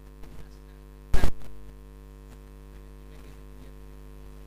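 Steady electrical mains hum in the recording chain, with one short, loud pop about a second in.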